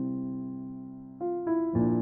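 Background piano music: a held chord fades away, then new notes start about a second in.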